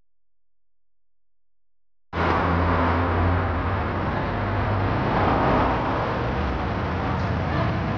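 Silence, then about two seconds in a steady outdoor background noise with a strong low rumble cuts in suddenly and keeps going.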